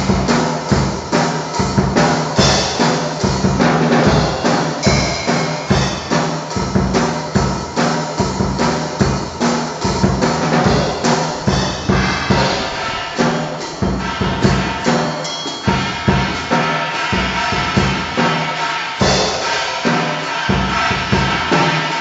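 Drum kit played in a steady, busy groove of bass drum and snare hits.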